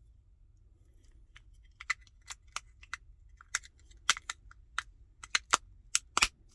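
Sharp plastic clicks and snaps of a car key fob being put back together, about a dozen irregular clicks starting about two seconds in.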